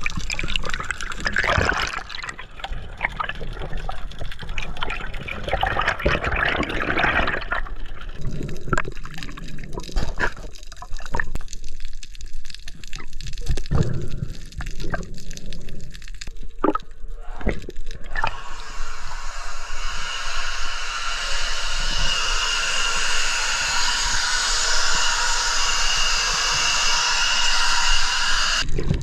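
Water heard through an underwater camera during a freedive: muffled bubbling with scattered sharp clicks and knocks, then about two-thirds of the way in a steady hiss of water washing at the surface.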